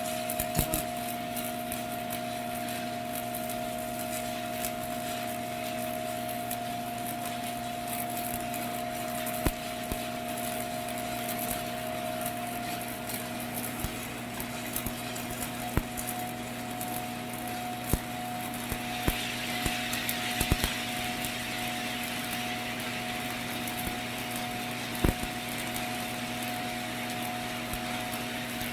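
Electric arc welding on a pipe joint: the arc crackles steadily with scattered sharp clicks, over the welding machine's steady hum. About two-thirds of the way through, a higher hiss joins in.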